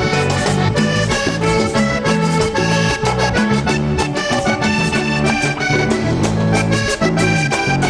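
Vallenato band playing an instrumental passage between verses, led by a button accordion's quick melody runs over a stepping bass line and steady percussion.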